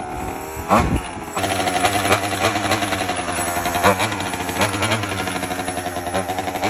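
Nitro-fuelled RC truck's small glow engine running with a buzzy, slightly wavering drone, stepping up louder about a second and a half in and holding steady after that.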